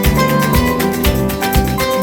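Background music with plucked guitar in a flamenco-like style over a bass line and a steady beat.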